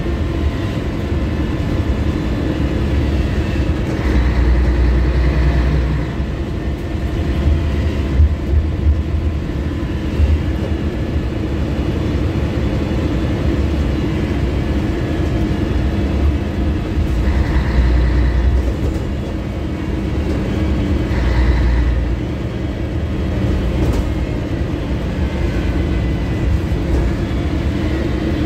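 Scania L113CRL city bus running under way, heard from the rear of the passenger cabin: a steady low diesel rumble with road and body noise. The engine note swells about three times as the bus pulls or accelerates.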